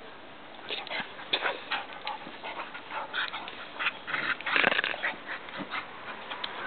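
Two dogs play-wrestling: a run of short, irregular dog sounds and scuffles starting under a second in, the loudest cluster about four and a half seconds in.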